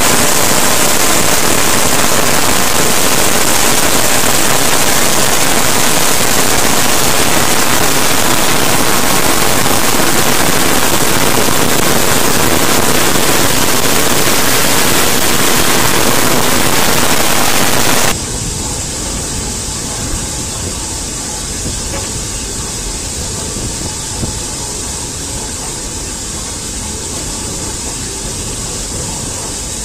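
Steam locomotive on the move with steam escaping in a loud, even hiss that cuts off abruptly about 18 seconds in. After that the lower rumble of the train running along the track carries on, with a few faint clicks.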